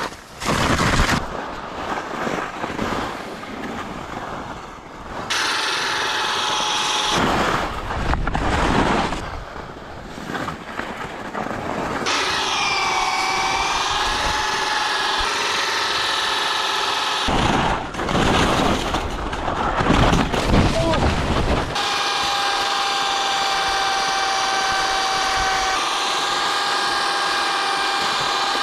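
Skis hissing and scraping on icy snow, then the PL1 portable ski-tow's motor whining steadily as its pulleys pull the skier uphill along a cord. The whine wavers in pitch for a few seconds midway and is broken by stretches of rushing snow noise.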